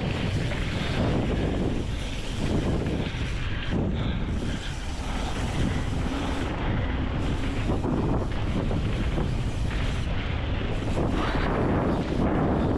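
Wind rushing over the microphone of a mountain bike speeding down a dirt flow trail, with the tyres rolling on the dirt underneath, rising and falling without a break.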